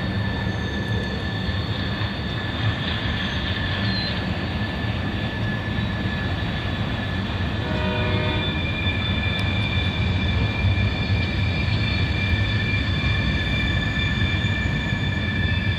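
Freight cars rolling through a curve: a steady rumble of wheels on rail with high, steady wheel squeal from the flanges, a second squeal pitch joining about halfway through.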